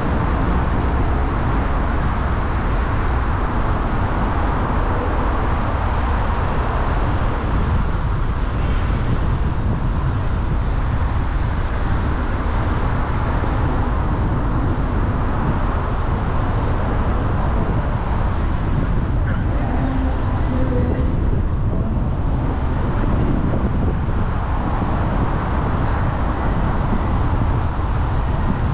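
A car driving on the road: steady tyre and engine noise with a strong low rumble, unchanging throughout.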